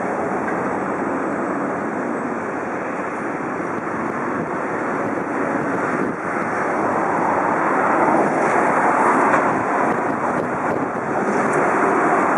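Distant twin-engine jet airliner on final approach, a steady engine roar that swells a little about two-thirds of the way through and again near the end, with wind rumbling on the microphone.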